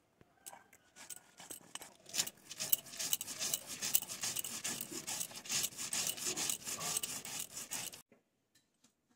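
Stone muller (nora) rubbed back and forth on a flat sil grinding stone, crushing soaked mustard seeds with poppy seeds and green chillies into a paste: a rapid, gritty, rhythmic scraping. It starts faintly, grows louder about two seconds in, and cuts off suddenly near the end.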